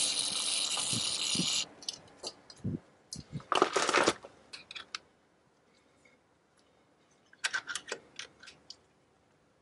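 Aerosol can spraying in a steady hiss for about a second and a half, then a short loud metallic clatter about three and a half seconds in, and a run of light metal clicks near the end as a hand tool is worked on the axle.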